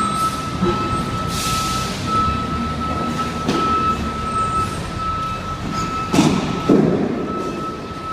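Heavy diesel earthmoving equipment running, with a backup alarm beeping steadily at a regular pace. Two louder clanking, scraping bursts come about six and seven seconds in.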